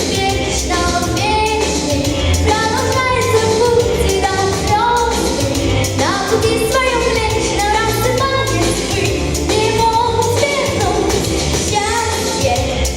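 A solo singer, most likely female, sings a pop song over a backing track with a steady bass and beat.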